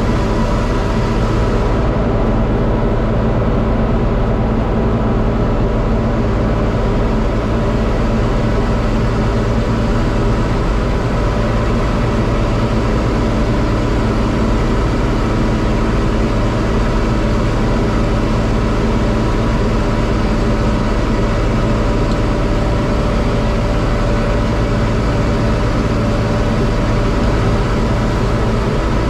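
John Deere 4250 tractor's six-cylinder diesel running steadily while pulling a Kuhn VB 3155 round baler in hay.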